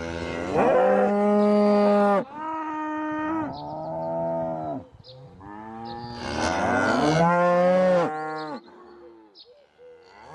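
Cattle mooing: a run of long, drawn-out moos one after another, each holding a steady pitch, the longest about two seconds, with a shorter, quieter moo near the end.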